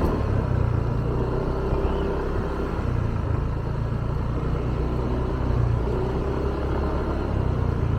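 Motorbike engine running steadily while riding, with a heavy low rumble.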